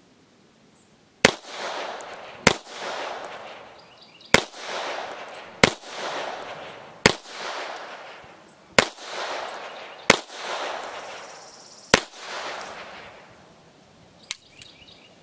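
Eight single shots from a Polish P-83 9x18mm Makarov pistol firing reduced-load handloads, spaced about a second and a half apart, each followed by a ringing echo. The pistol cycles every round with no failures to feed. A couple of lighter metallic clicks come near the end.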